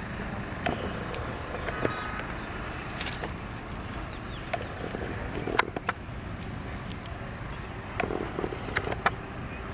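Steady low rumble of an approaching electric freight train, heard from a distance, with scattered sharp clicks.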